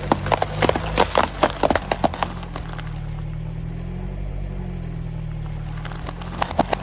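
A car's tyre crushing brittle objects: a quick run of sharp cracks and snaps over the low hum of the car's engine. The cracking stops about two seconds in, leaving only the engine running, and starts again near the end.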